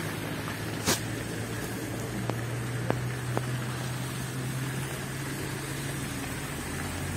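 Cars running along a slushy street, with a steady low engine hum over the noise of traffic. A sharp click comes about a second in, followed by a few fainter clicks.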